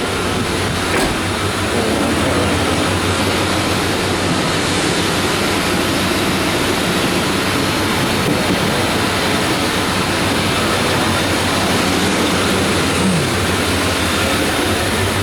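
A 1994 Chevy Silverado's 350 TBI V8 idling steadily while still cold, heard from inside the cab.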